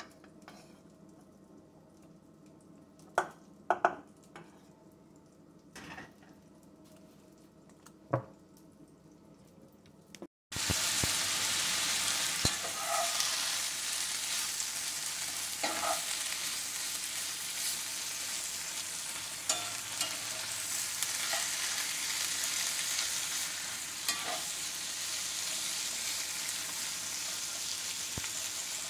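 A few light knocks of a wooden spoon against a steel pot of cooked rice, then, about ten seconds in, a sudden switch to vegetables sizzling steadily in a cast-iron skillet as they are stirred and scraped with a metal spatula.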